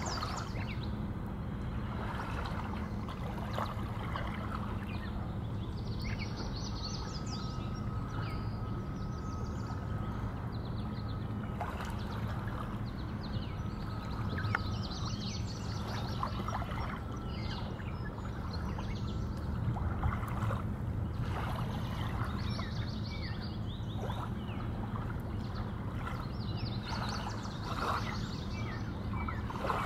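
Open-river ambience from a kayak: water lapping and trickling against the hull, with birds chirping from the shore and a steady low rumble underneath. A thin steady whistle-like tone comes and goes in the middle.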